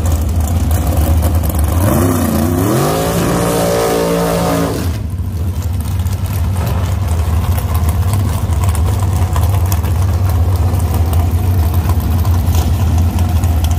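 Car engines running with a steady low rumble; about two seconds in one engine revs up, its pitch climbing and then holding high for a couple of seconds before cutting off sharply.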